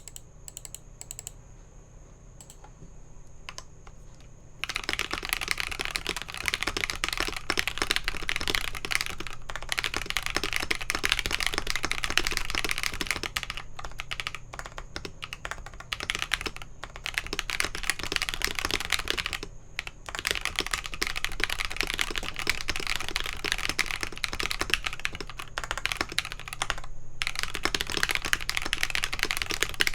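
Typing on a gasket-mounted aluminium-plate KalBro 75% mechanical keyboard with lubed Akko Radiant Red linear switches, foam-filled case and Holee-modded stabilizers. A few keystrokes at first, then fast continuous typing from about four and a half seconds in, broken by a few short pauses.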